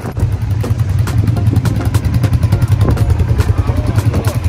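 Polaris 570 ATV's single-cylinder four-stroke engine running steadily as the quad rides along, a loud low throbbing rumble.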